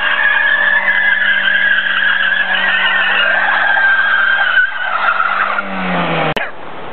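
Daewoo Nexia's four-cylinder engine held at high revs while its tyres spin and squeal in a long steady screech during a smoky burnout. About six seconds in the revs and the squeal fall away. The spin is hard enough to wear the tyre out.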